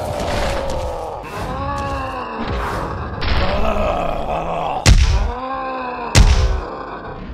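Cartoon fight sound effects: a man's voice groaning and grunting in pain, with two heavy punch thuds about five and six seconds in.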